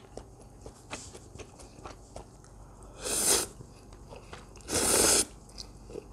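Close-up eating sounds: a few seconds of quiet chewing with small mouth clicks, then two long slurps of Korean ramen noodles, about three and five seconds in.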